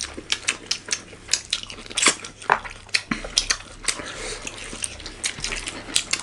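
Close-miked eating sounds: chewing, with a quick string of sharp clicks and taps of cutlery and food against plates, several a second.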